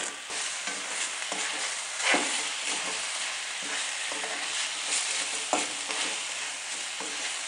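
Fresh catfish steaks sizzling in hot oil in a stainless steel wok while a spatula stirs them, with a few louder scrapes of the spatula against the pan.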